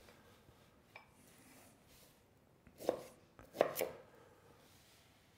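Kitchen knife cutting pineapple on a wooden cutting board: a faint tap about a second in, then two louder knocks of the blade near the middle.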